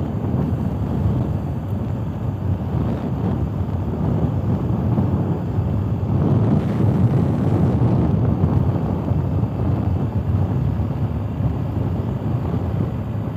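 Steady wind rush on a helmet-mounted camera's microphone while riding a BMW R 1250 GS Adventure motorcycle on a gravel road. The bike's boxer-twin engine and its tyres on the gravel blend in as a low rumble that swells slightly about halfway through.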